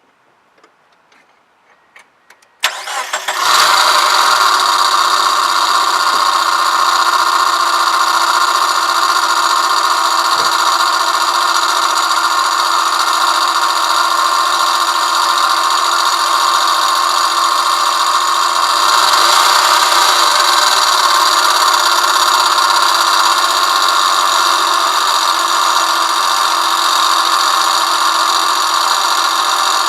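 2001 Mazda Miata's four-cylinder engine starts abruptly about three seconds in, after a few faint clicks, then runs steadily and loudly with a loud noise from the cylinder head, the fault the owner is showing.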